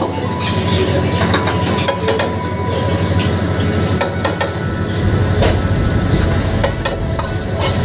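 Rice with vegetables stir-fried in a wok, sizzling, with a steel ladle clanking and scraping against the pan many times. A gas wok burner keeps up a steady rumble underneath.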